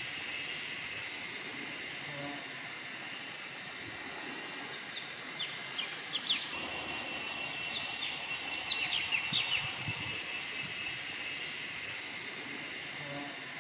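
Forest ambience of insects droning steadily, with clusters of short high chirps about five to seven seconds in and again around nine seconds in.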